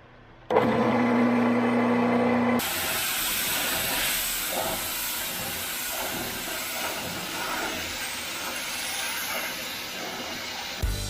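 Pressure washer: its motor hums briefly, then a steady hiss of high-pressure water spray starts about two and a half seconds in and runs on.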